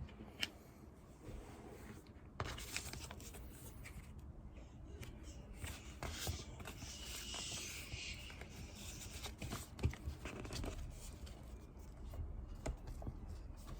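Faint desk sounds of paper work: pen scratching on paper, with scattered light taps and paper handling.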